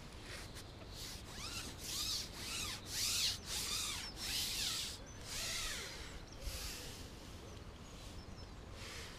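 A series of about a dozen short scraping or rustling strokes, roughly one every half second to a second. They are loudest around three seconds in and fade towards the end.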